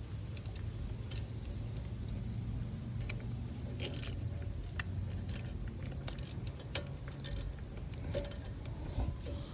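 Irregular light metallic clicks and clinks of a palm ratchet and socket being worked on a bolt, with a few sharper clinks in the middle, over a low steady hum.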